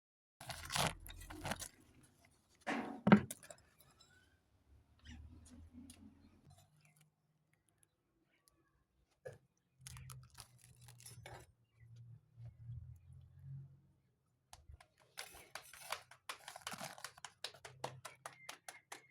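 Roti dough being handled at a tandoor: a few sharp thuds and knocks in the first three seconds, the loudest about three seconds in, then sparse light clicks, and from about fifteen seconds a rapid run of light slaps and taps.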